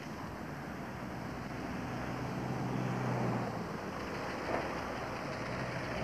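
City street traffic: a steady wash of passing cars, with one vehicle's low engine hum swelling through the middle.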